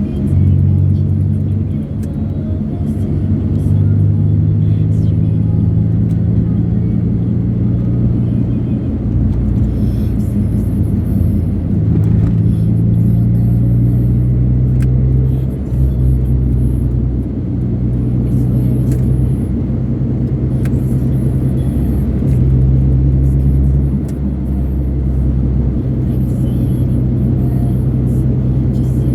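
Music playing on a car stereo with a heavy bass line, over the steady rumble of the car on the road.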